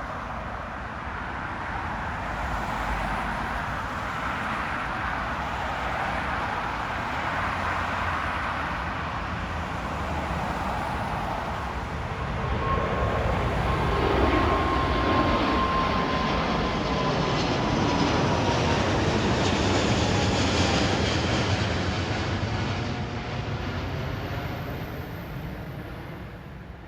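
Jet airliner passing by: a steady engine rush that swells to its loudest about midway, with a faint engine whine sliding down in pitch as it goes past, then fading away near the end.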